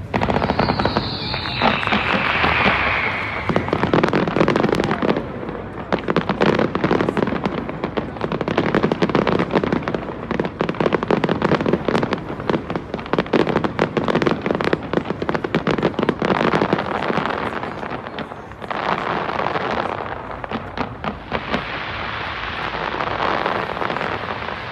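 Fireworks going off in a dense barrage: many bangs and crackling bursts in quick succession, with a whistling rocket falling in pitch about a second in.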